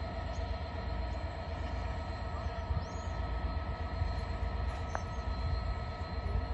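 Class 66 diesel-electric locomotive running at low speed as it hauls a train of tank wagons, a steady low rumble with steady whining tones over it.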